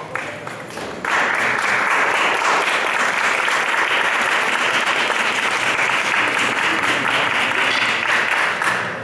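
Audience applauding, swelling to full strength about a second in and dying away near the end.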